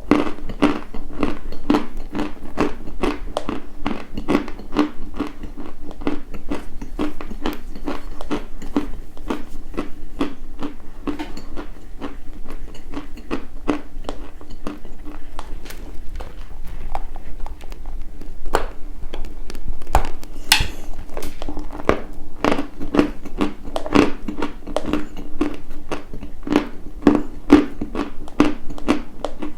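Dry white chalk being bitten and chewed close to the microphone: a steady run of sharp, crisp crunches, about three or four a second.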